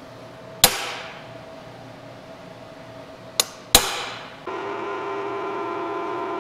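Hammer striking a center punch into a steel plate: a sharp, briefly ringing strike, then a light tap and a second ringing strike. About four and a half seconds in, a drill press motor is running with a steady hum.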